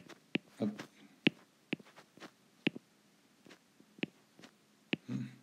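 Sharp, irregular taps of a stylus tip on a tablet's glass screen, about a dozen, with a brief low hum near the end.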